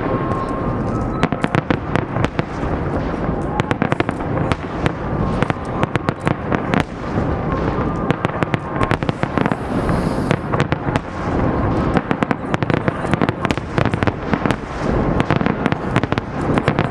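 Fireworks display: a dense, continuous barrage of shells bursting, with rapid crackling and popping over low booms.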